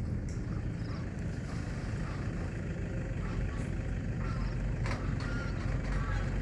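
Small boat's engine running steadily with a low rumble, with faint voices and a single sharp click about five seconds in.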